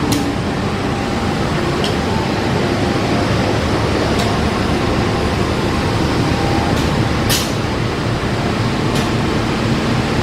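Diesel-electric locomotive idling during a station stop: a steady, loud engine rumble, with a few short hisses, the longest about seven seconds in.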